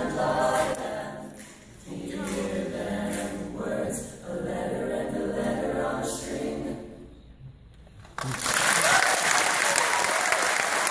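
Mixed choir singing a cappella in several phrases, the last one fading out about seven seconds in. After a short hush, the audience starts applauding a little after eight seconds and keeps on to the end.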